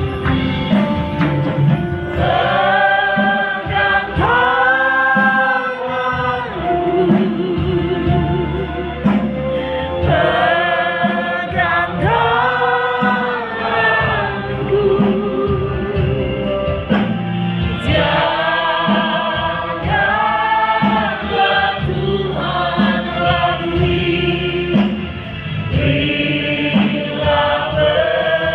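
A group of voices singing a Christian worship song in long sung phrases.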